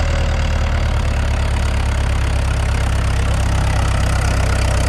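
Mahindra 585 DI XP Plus tractor's four-cylinder diesel engine running steadily under heavy load as the tractor strains up a loose sandy slope, its rear wheels churning sand.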